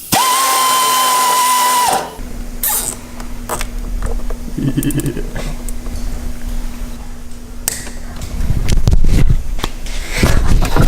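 Small electric motor whirring with a steady high whine for about two seconds, then cutting off sharply. A faint low hum continues after it, with scattered knocks and clatter, and louder rumbling near the end.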